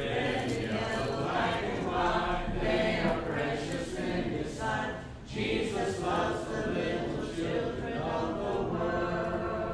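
A small group of children and an adult singing a song together without instruments, in phrases with a short break about five seconds in.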